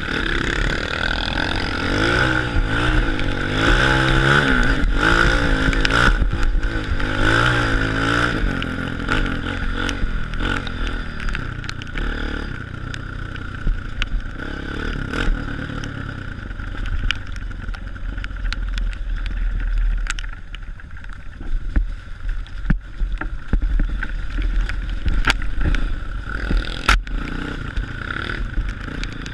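Honda CRF230 trail bike's single-cylinder four-stroke engine revving up and down over the first several seconds, then running lower. Scattered knocks and clatter from the bike working over rough ground come later.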